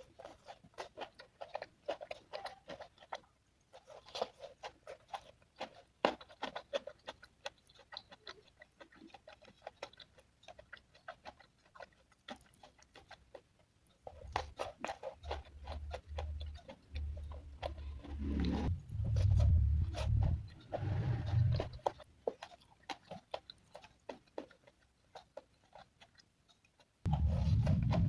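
Close-miked chewing and mouth sounds of a person eating: a fast run of wet clicks and smacks. Low thumps and rumble join in the middle, and a loud low sound starts near the end.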